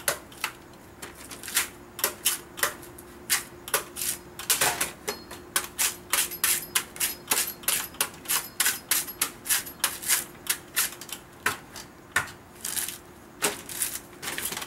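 Knife shaving the husk off a young Nam-Hom coconut in quick, sharp strokes, about three a second at the busiest, with a short pause a little before the end.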